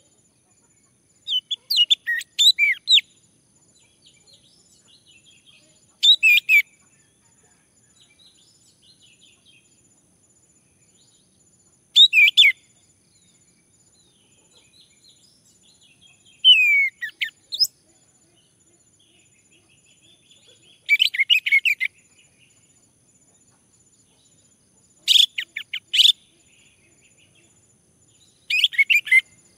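Male orange-headed thrush singing: seven short, quick phrases of varied notes, about one every four seconds, with a faint steady high whine in the background.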